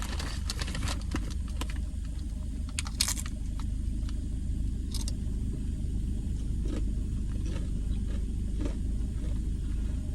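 Doritos tortilla chips crunching as they are bitten and chewed, in sharp crackly bursts that are densest in the first second and again around three and five seconds in, then fainter. A steady low rumble runs underneath.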